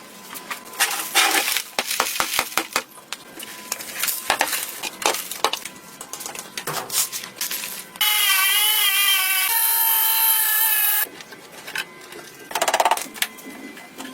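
Workshop tool work: irregular scraping, rubbing and clicking of tools on a workpiece. A loud whirring tone with a wavering pitch takes over for about three seconds in the second half.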